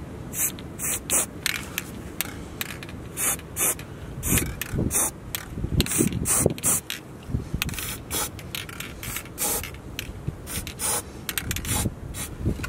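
Aerosol spray paint can hissing in many short spurts over bare metal around freshly drilled holes in the truck bed.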